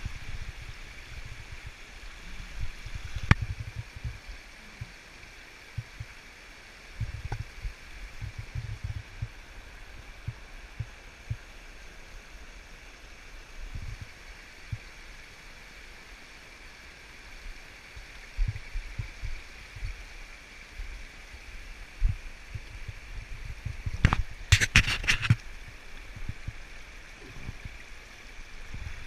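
Steady rush of river water pouring over and through metal grates, with scattered low thumps. A sharp click comes a few seconds in, and a brief rapid rattling clatter comes late on.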